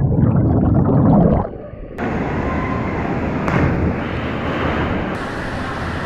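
Cliff-jump plunge heard through a waterproof action camera: a loud, muffled rush of water and bubbles while underwater, which drops away about a second and a half in. Then the camera surfaces into steady open water noise, with a short splash a little later.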